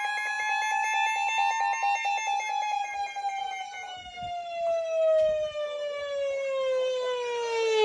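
A siren tone holding high for about two seconds, then slowly falling in pitch as it winds down.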